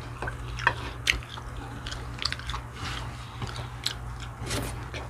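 Close-up eating sounds: irregular wet chewing and small crunchy clicks of a person chewing fried chicken and carbonara.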